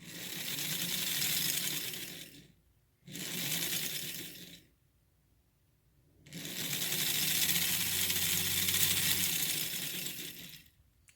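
Prewar American Flyer 1093 toy locomotive's electric motor and gears whirring as it is run on a bench test. It is powered in three runs of roughly two and a half, one and a half and four and a half seconds, with short silent gaps between.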